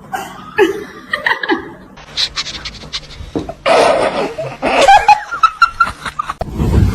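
A person laughing, with loud noisy bursts through the second half.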